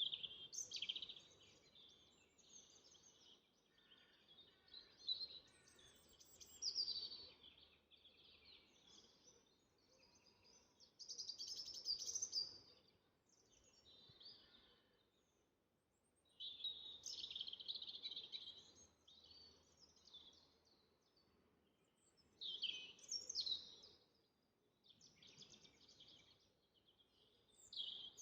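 Songbirds singing, a series of short high-pitched phrases of a second or two each, with brief pauses between them.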